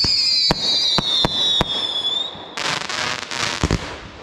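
Fireworks going off: a high whistle that slowly falls in pitch, with several sharp bangs over it. About two and a half seconds in it gives way to a burst of dense crackling that lasts about a second.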